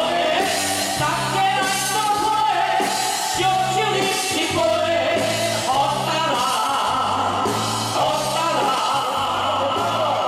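Live singing into stage microphones over loud amplified musical accompaniment with a steady beat.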